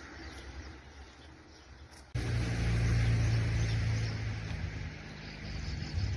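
A steady low engine hum, like a motor vehicle, that cuts in suddenly about two seconds in over outdoor background noise and eases slightly near the end.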